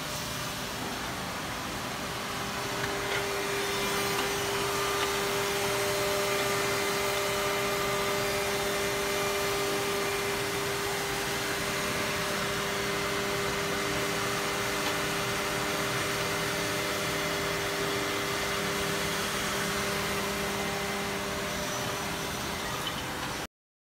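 Woodmaster WM-D200CNC-FR double-end CNC oval tenoning machine running as its cutter heads machine tenons on wooden parts: a steady mechanical noise with a held tone that sets in about two seconds in. The sound cuts off abruptly near the end.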